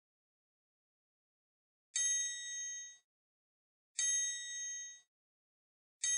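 A bright, ringing ding sound effect, played three times about two seconds apart; each one starts sharply and dies away within about a second, with complete silence between.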